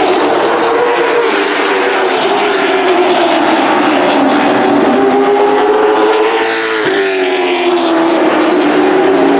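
Late model stock cars' V8 engines running at racing speed around a short oval, their pitch rising and falling as the pack goes through the turns. A car sweeps past close by about seven seconds in.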